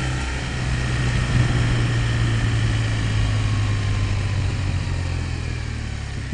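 Motorcycle engine running steadily at low revs while riding, its note easing slightly toward the end.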